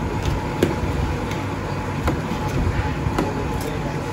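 Busy street-food shop ambience: a steady low rumble with several short, sharp clinks scattered through it.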